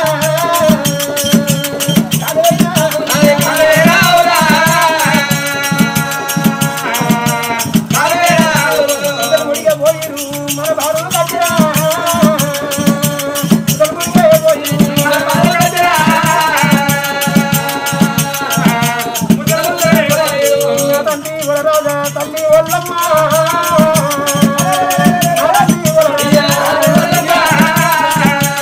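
Oggu katha folk music with no sung words: a steady percussion beat with rattling, under a sustained, wavering melody line.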